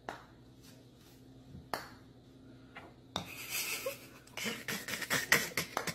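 Putter clicking against golf balls on an indoor putting mat: two single sharp clicks, then a quicker run of clicks over a faint hiss near the end.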